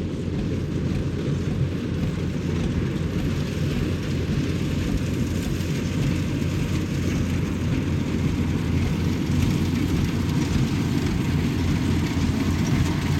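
Yanmar 850 combine harvester running steadily while harvesting rice, a continuous low engine drone with no change in pace.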